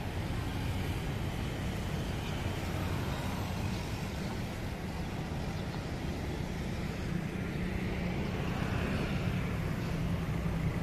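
Steady road traffic from cars and motorcycles passing on a multi-lane road below, heard from a pedestrian overpass.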